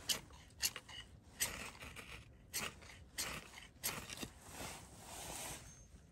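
Knife scraped hard down a ferrocerium rod, about seven quick rasping strikes throwing sparks into dry wood shavings to light a fire, then a longer, softer rasp near the end.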